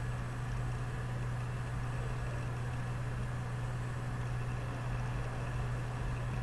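Steady low hum over a faint, even hiss, unchanging throughout.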